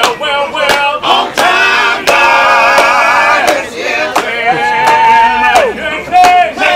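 Street band singing in harmony, with a sharp click marking a steady beat about every two-thirds of a second. Near the end one voice holds a long high note and slides down off it.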